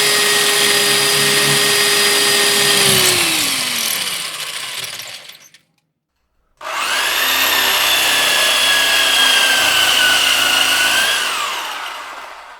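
Handheld electric drill motor running free at speed with a high whine, then the trigger released and the motor winding down to a stop. After about a second of silence it starts again at full speed, holds, and winds down again near the end.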